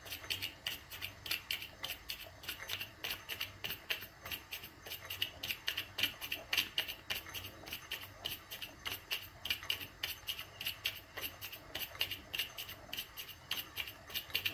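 Miniature oscillating steam engine running steadily, with a quick, even chuffing of exhaust steam several times a second.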